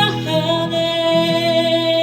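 Live indie band music: one long note, most likely sung by a female voice, is held steady over the band's accompaniment.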